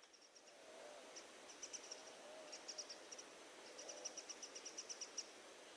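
Near silence with faint, high-pitched chirping from birds or insects, in short quick runs of several chirps each.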